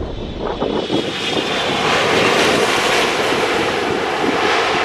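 Boeing 777 jet engines at takeoff power on the takeoff roll: a loud jet roar with a high whine, swelling over the first couple of seconds and then holding steady.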